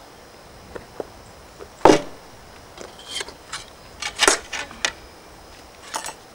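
Dishes, cutlery and a frying pan clattering on a wooden picnic table as food is set out. There is a loud knock about two seconds in, then a run of clinks and taps around four to five seconds, and one more near the end.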